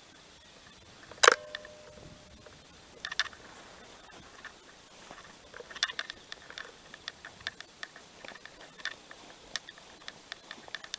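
One sharp clink with a brief ring about a second in, then scattered light ticks and taps, more frequent in the second half: camp gear and tent canvas being handled.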